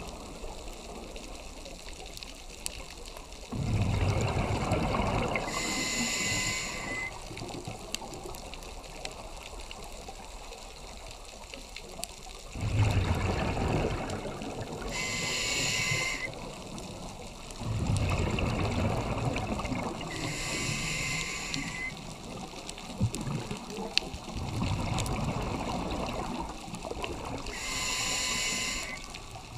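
A scuba diver breathing through a regulator underwater. There are four breath cycles, each a few seconds of exhaled bubbles gurgling and rumbling with a short hiss near its end, separated by quieter stretches.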